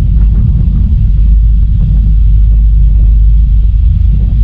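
Loud, steady low rumble on the open deck of a catamaran ferry under way: wind buffeting the microphone over the ship's engines.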